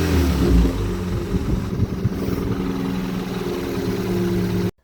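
Ford Puma 1.7 inline four-cylinder engine running just after its first start: the revs fall away in the first second, then settle into a steady idle. The sound cuts off abruptly near the end.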